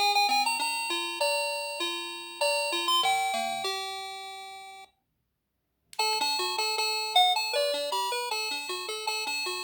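NX-5776-675 electronic doorbell playing a chime melody of bell-like notes, each note dying away. The tune ends about five seconds in with its last notes ringing out, and after a second of silence a different, quicker chime melody starts.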